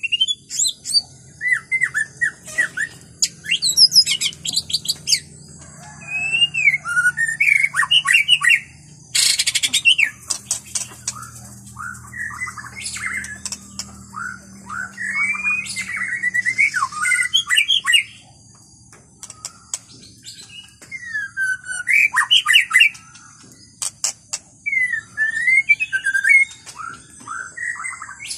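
White-rumped shama singing: bursts of varied, rich whistled phrases that slide up and down, repeated with short pauses, over a steady high hiss.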